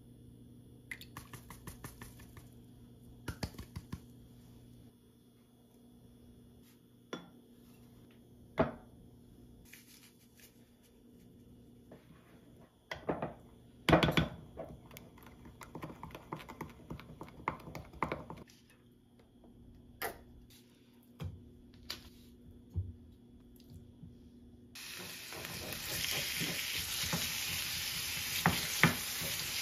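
Scattered knocks and clinks of a wooden spoon against a glass bowl as a seasoning paste is mixed. Near the end, pork pieces start sizzling in a hot pan and are stirred with a wooden spatula, with a steady hiss of frying.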